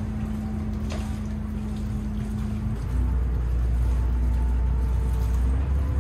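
Engine of a harbour pleasure boat running, a steady low drone with a faint tone above it. About three seconds in the drone gets louder and its note changes. A single brief click comes about a second in.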